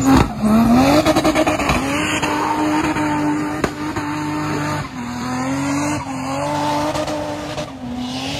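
Turbocharged Nissan TB45 straight-six petrol engine of a Y61 Patrol held at high revs under load while the truck drives hard through mud. The engine note climbs at the start, holds, then dips and climbs back about three times in the second half.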